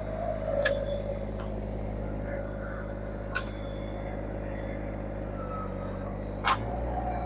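An engine running steadily, with three sharp clicks spaced about three seconds apart; the engine's tone shifts slightly near the end.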